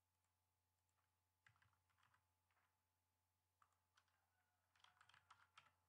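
Faint computer keyboard typing: a short run of keystrokes about a second and a half in, then a second, busier run near the end.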